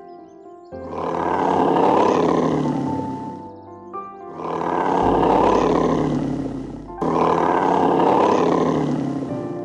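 Three long, rough animal calls, each swelling and then fading, over soft piano music.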